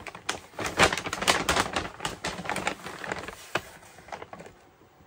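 Paper takeout bag rustling and crinkling as it is handled and lifted, a quick run of crackles that thins out near the end.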